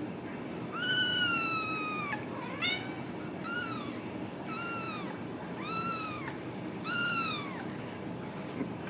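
Ragdoll kitten meowing: six high-pitched mews in a row, the first long and slowly falling, a short rising one, then four arched ones, the last the loudest.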